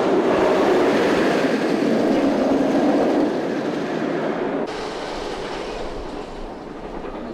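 Wheels of a rail vehicle rolling along a track, a steady rumble with some clatter. It eases a little about three seconds in and changes abruptly about halfway through.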